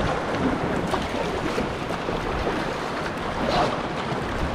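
Steady rush of river whitewater rapids, with some wind noise on the microphone.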